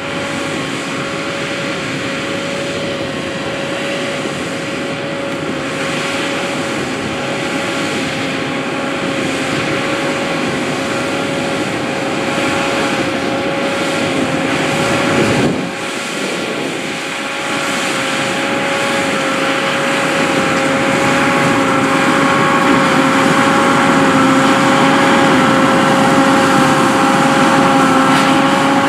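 John Deere 7280R tractor running steadily while pulling a Massey Ferguson Hesston 2270XD large square baler, with a steady whine over the engine noise. There is a brief dip about halfway, and it grows louder through the second half.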